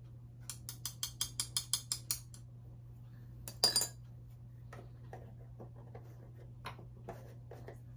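Container of powdered rooting hormone tapped quickly about ten times, about six taps a second, then one louder knock and a few faint clicks as it is handled.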